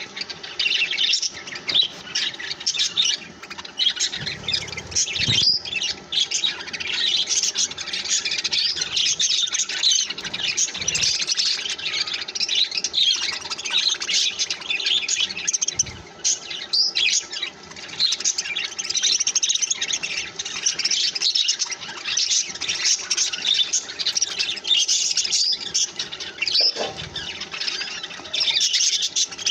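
Several budgerigars chattering together: a dense, unbroken run of quick high chirps and squawks, with a few soft low thumps now and then.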